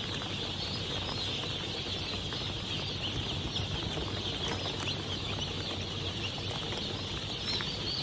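A crate full of day-old broiler chicks peeping all at once, a dense, steady chorus of high, short chirps over a faint low hum.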